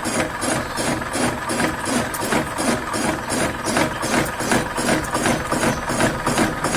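Machinery running steadily with a regular, rapid clatter of about four to five pulses a second.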